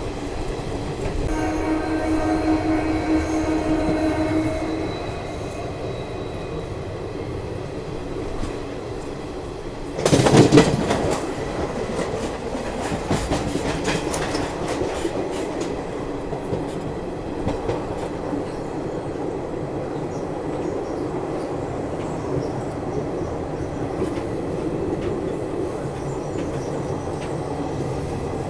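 Passenger train running at speed, heard from its open doorway: a steady rumble of wheels and wind. A train horn sounds for a few seconds near the start; about ten seconds in comes a sudden loud rush, followed by several seconds of wheels clattering.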